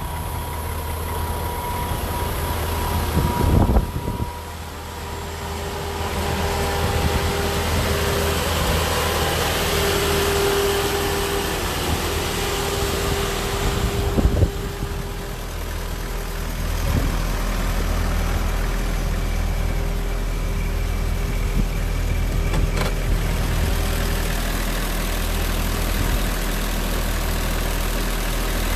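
Heavy truck engine of the concrete-pouring equipment running steadily with a low hum, with a couple of brief knocks about 3 seconds and 14 seconds in.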